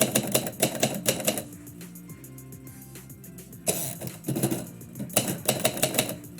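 Typewriter keys striking in three quick bursts of rapid clicks as a poem is typed, over background music.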